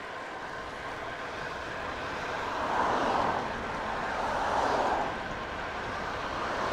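Motor traffic on a busy road heard from a moving bicycle. Cars pass in two swells of tyre and engine noise, about three and four and a half seconds in, over a steady rumble of road and wind noise.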